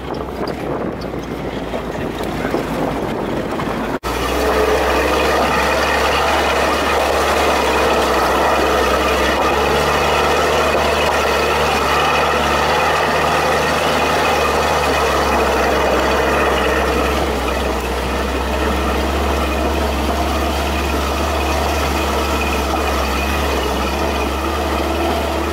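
Rushing wind and road noise from a jeep driving fast on a dirt track. About four seconds in it changes abruptly to the steady, loud drone of the old GAZ-69 jeep's engine running, heard from inside the open-topped vehicle.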